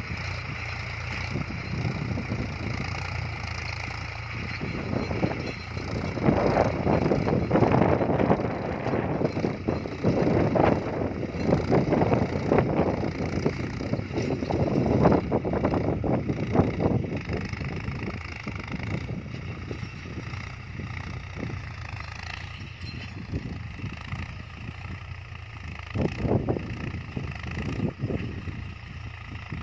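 35 hp Mahindra Yuvo 275 DI tractor's three-cylinder diesel engine running steadily under load while pulling a tine cultivator through ploughed soil. A louder rushing noise comes and goes through the middle, and the sound drops off somewhat near the end as the tractor pulls away.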